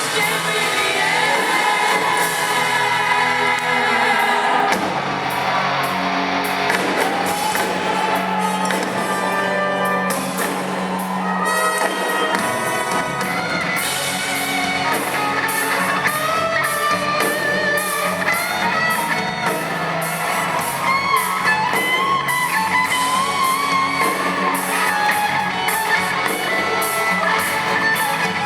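A rock band playing live with a lead singer, recorded in the audience. Drum and cymbal strokes set in about five seconds in.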